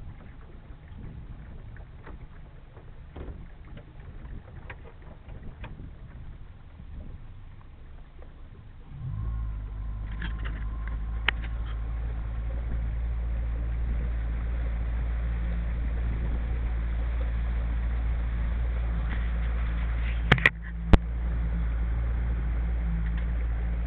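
A few light knocks against a quiet background. About nine seconds in, a boat motor starts and runs with a steady low hum. Two sharp knocks come near the end.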